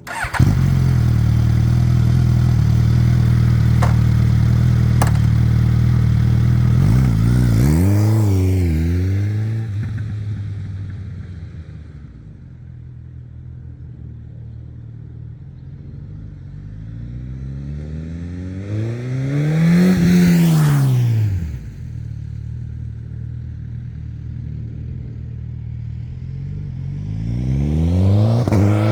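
Suzuki GSX-S1000's inline-four engine through an SC-Project aftermarket exhaust: it comes in loud and runs steadily for several seconds, then revs rise and fall as the bike rides off and the sound fades. It comes back past with a loud rise and fall in revs about twenty seconds in, and swells again with rising revs near the end.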